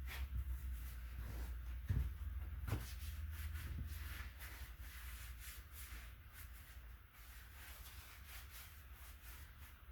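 Faint workshop handling noises: scattered light knocks and clicks with some rubbing, a louder knock about two seconds in, over a low hum that fades after about four seconds.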